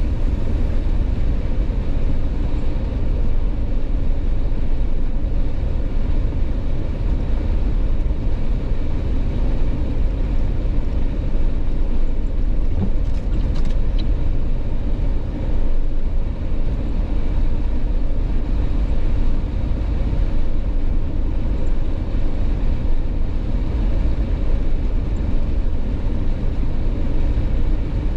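A Jeep being driven at a steady speed: an unbroken low rumble of engine and road noise.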